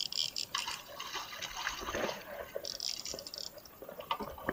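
Water splashing and dripping, with two hissy spells (one at the start, one about two-thirds through) and scattered small clicks.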